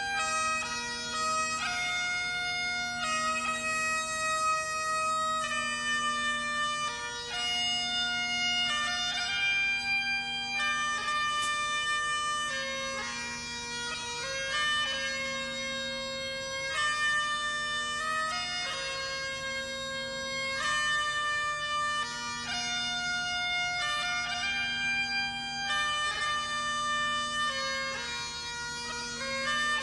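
Great Highland bagpipes played solo: a melody of held, stepping notes on the chanter over the steady drones.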